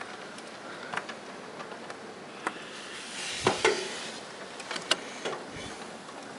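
Steady rain hiss with scattered sharp ticks of drops striking a nearby surface, and a louder double knock about three and a half seconds in.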